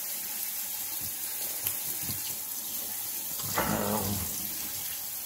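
Kitchen faucet spraying water steadily onto rice in a fine-mesh strainer over a stainless steel sink, rinsing the rice. A short louder sound with a pitch joins briefly about three and a half seconds in.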